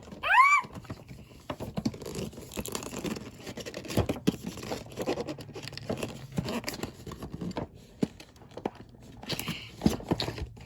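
Cardboard toy box and its tape being worked at by hand: scraping, rustling and scattered clicks of packaging being handled and peeled. About half a second in, a short high squeal that rises and falls in pitch is the loudest sound.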